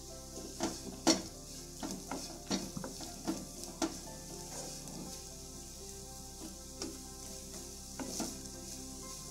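Grated jackfruit seeds sizzling as they fry in oil in a non-stick frying pan. A spatula scrapes through them repeatedly in the first four seconds and again about eight seconds in.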